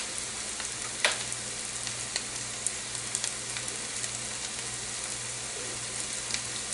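Spinach sautéing in a frying pan, a steady sizzle with a faint low hum under it and a few light clicks and taps, the sharpest about a second in.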